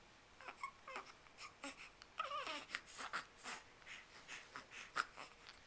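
Baby making a string of short, high-pitched squeaks and breathy vocal noises, with one longer call falling in pitch about two seconds in.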